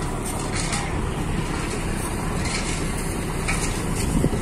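Steady low drone of a cantrang fishing boat's diesel engine running while the boat is brought in to berth, with a short thump near the end.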